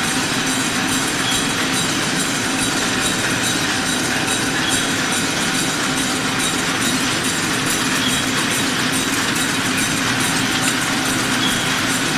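Canning production line running: a steady machine hum with a constant light clicking and rattling of metal cans moving along the conveyor.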